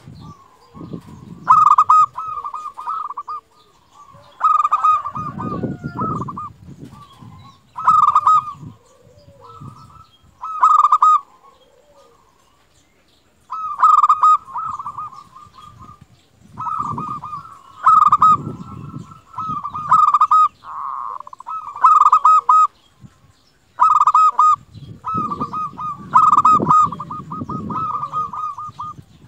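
Zebra dove (perkutut) cooing: about a dozen bursts of rapid staccato coos, repeated every second or two, with a short pause near the middle. A low rumble sits under some of the phrases.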